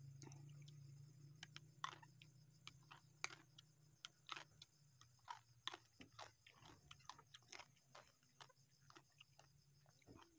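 Close-miked chewing of raw pea eggplants (takokak): irregular crunches and wet mouth clicks, a few each second, over a faint low hum that fades out near the end.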